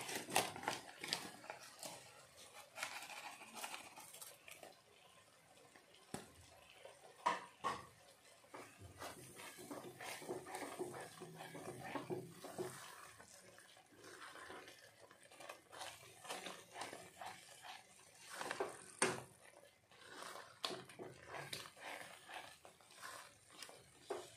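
A silicone spatula stirring and scraping a wet tomato-onion masala around a pot, with irregular scrapes and knocks against the pot.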